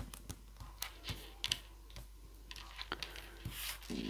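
Fingertips and fingernails pressing and tapping a glued paper butterfly onto card stock, giving scattered light clicks and short paper rustles.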